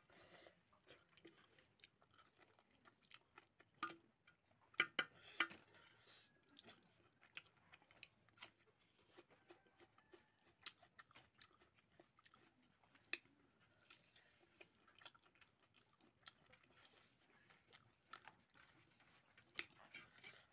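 Faint close-up mouth sounds of a person eating pork hock and rice by hand: soft chewing and smacking, with scattered clicks and a few louder smacks around four to five seconds in.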